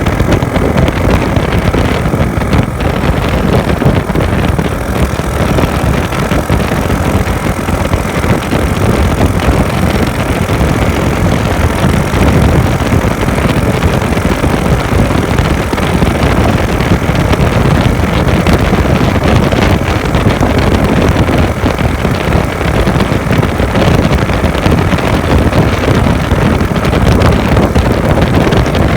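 Steady wind rumble on the microphone of a Honda Wave 110 motorcycle riding at speed, with its small single-cylinder four-stroke engine running under it.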